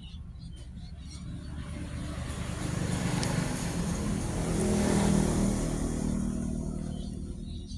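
A motor vehicle passing by: its engine hum and road noise swell to a peak about five seconds in, then fade away.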